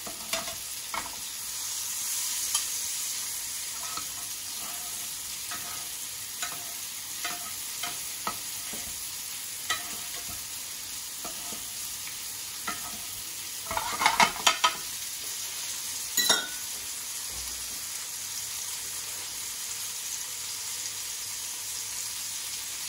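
Butter sizzling and spitting in a frying pan as onions and mushrooms are basted, a metal spoon tapping lightly against the pan about once a second. About fourteen seconds in the spoon clatters more loudly on the pan, with a sharp clink shortly after.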